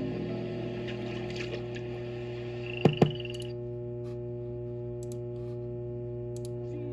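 Steady electrical hum with several pitched lines, and two sharp clicks about three seconds in with a brief high tone.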